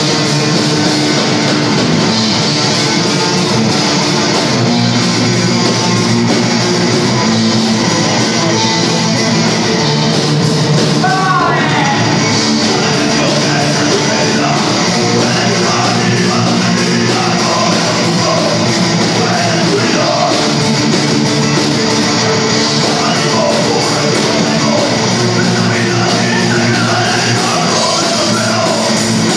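Live heavy rock band playing loud: electric guitars and drums, with shouted vocals over them in the second half.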